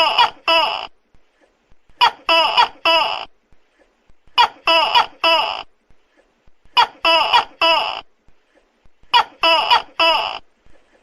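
Tokay gecko calling loudly: tight bursts of three or four short, pitched 'to-kek' syllables, repeated evenly about every two and a half seconds, five times.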